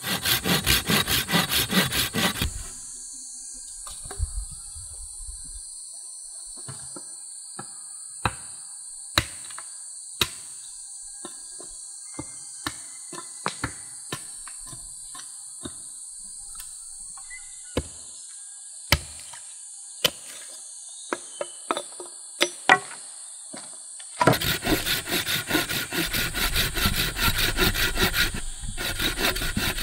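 Hand saw cutting through a green log in quick back-and-forth strokes for about two seconds, then again for the last six seconds or so. In between, insects drone steadily, with scattered sharp knocks.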